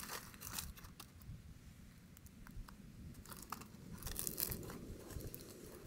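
Aluminium foil packet crinkling and crackling as it is opened by hand, in scattered crackles with a louder cluster about four seconds in.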